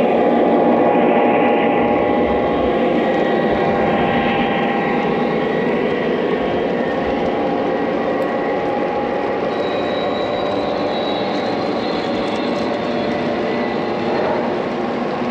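Lionel O-gauge freight train rolling past on three-rail track: a steady rumble and clatter of metal wheels on the rails, with the lead DD35A diesel's engine sound from its onboard speaker. Loudest as the locomotive passes, easing off slightly as the cars roll by.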